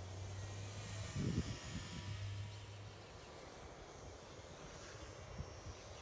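Faint distant whine of a small electric RC warbird's motor and propeller flying high overhead, over light outdoor noise. There is a short low sound about a second in.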